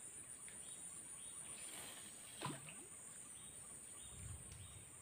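Faint, steady high-pitched insect chorus from the riverside vegetation, with one brief faint gliding sound about halfway through.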